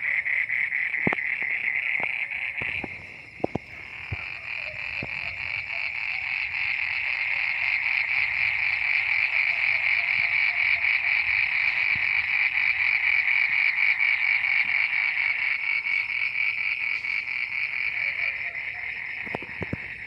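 Dense chorus of many frogs calling together, a steady fast-pulsing chorus that dips briefly about three seconds in and builds again. A few soft knocks in the first five seconds.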